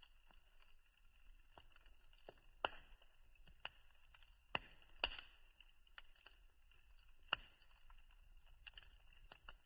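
Wood campfire crackling faintly, with irregular sharp snaps and pops, a handful of them much louder than the rest, over a steady high-pitched hiss.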